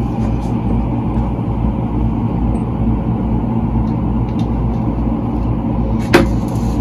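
Steady low mechanical hum, like a motor or fan running without change. A single sharp knock comes near the end, as the hot sauce bottle is set down on the counter.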